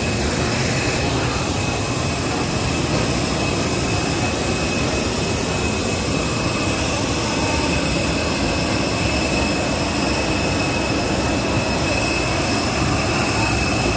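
Jet airliner cabin noise as the plane taxis after landing: the engines' steady rumble with a constant high-pitched whine over it.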